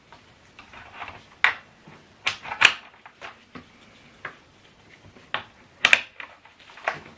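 Irregular clicks and knocks of a portable Bluetooth speaker and its parts being handled and fitted together, a dozen or so sharp taps spread unevenly.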